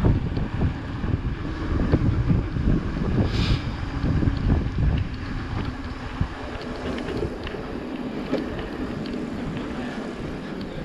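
Wind buffeting the microphone while a mountain bike rolls down a rough forest trail, with the knocks and rattles of the bike over the ground. The rumble is heaviest for the first five seconds and eases after, with a brief hiss about three and a half seconds in.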